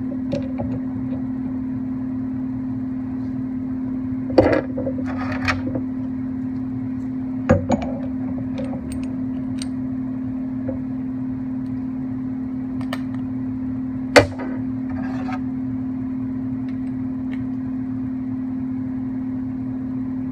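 A steady hum throughout, with a few sharp knocks and clicks of metal parts and tools being handled while reassembling a mini lathe; the loudest knock comes about fourteen seconds in.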